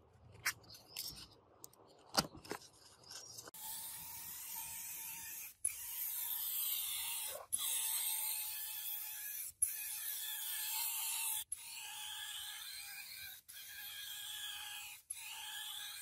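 A sanding block is rubbed by hand over a metal refrigerator panel in a few faint scrapes. From about three and a half seconds in, a gravity-feed air spray gun hisses steadily as it sprays paint onto the refrigerator cabinet, in stretches of about two seconds with short breaks between them.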